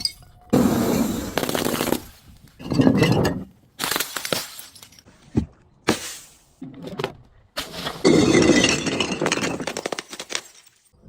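Glass breaking and crunching in a series of separate bursts, with one sharp crack about halfway through and a longer crunching spell of a couple of seconds near the end.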